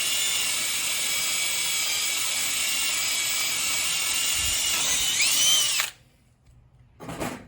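Power drill spinning a hole saw with a steady whine as it cuts, its pitch dipping and rising briefly before it stops suddenly. A short knock follows about a second later.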